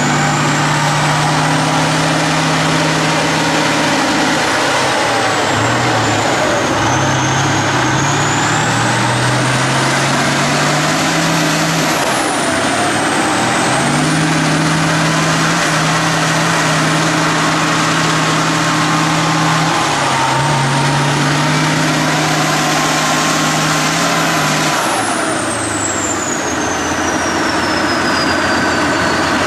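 T-90 tank's 1000 hp V12 diesel running hard under heavy load as the tank tries to drive out of deep mud, its pitch stepping up and down, with a high whine rising and falling over it. About 25 seconds in the revs drop and the whine glides down.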